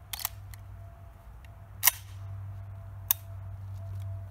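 Metallic clicks and clacks of a shotgun being handled at its action: a quick pair at the start, one sharp clack about two seconds in, and a lighter click about a second later.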